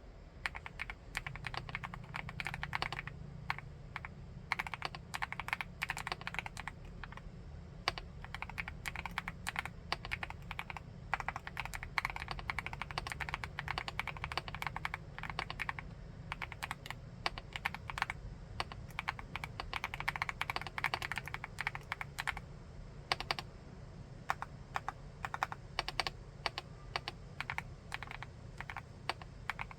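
Typing on a 75% full-aluminium keyboard: fast, continuous keystrokes in runs, with short pauses between them.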